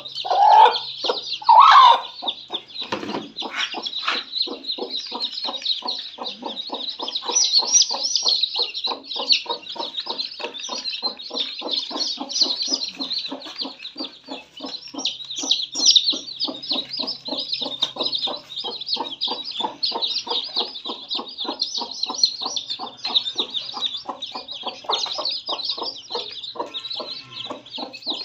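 A brood of chicks peeping continuously while a mother hen clucks over them in a steady run of short low clucks, about four a second. The hen gives two louder calls within the first two seconds.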